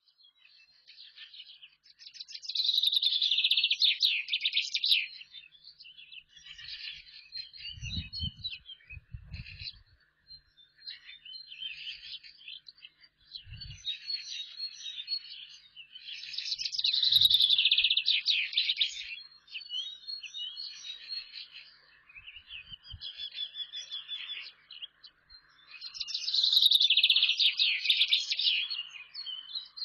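A small songbird singing: high, trilled phrases a couple of seconds long, repeated about every ten seconds with softer chirping between them. A few faint low thumps come in the middle.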